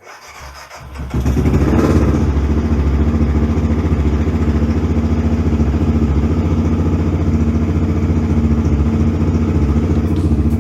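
BMW F650 GS motorcycle engine started through a Staintune aftermarket exhaust: it catches about a second in with a brief rev, then idles with an even, steady pulse until it cuts off near the end.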